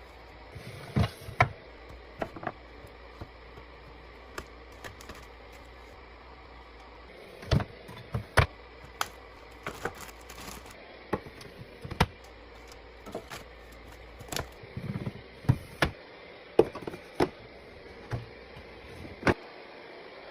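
Food containers and jars being set down and arranged on fridge shelves: irregular clacks and taps, some in quick pairs, over a steady hiss.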